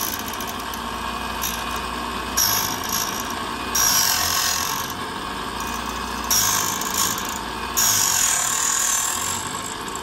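Foley Belsaw No. 200 key machine running on its belt-driven sewing machine motor while its cutter wheel cuts a Schlage key blank. The cutting gets louder and harsher in four stretches of about a second each, as the blank is pushed into the cutter. The motor bogs down on the deep cuts.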